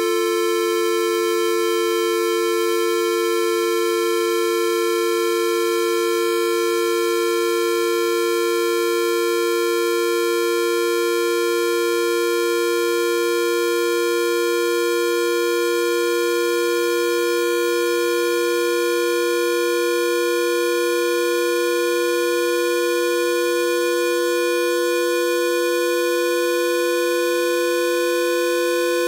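Two synthesized square-wave beeps sounding together: a steady C4 and a B3 tone whose pitch keeps slowly rising. The result is a continuous buzzy two-note drone that shifts gradually.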